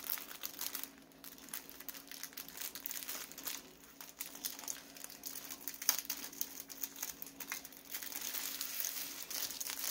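Plastic packaging crinkling and rustling as it is handled, with irregular sharp crackles, the sharpest about six seconds in.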